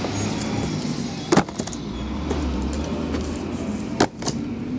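Sealed metal trading-card tins being shifted and set down on a tabletop, with sharp knocks about a second in and again near the end, and lighter clicks between, over a low steady rumble.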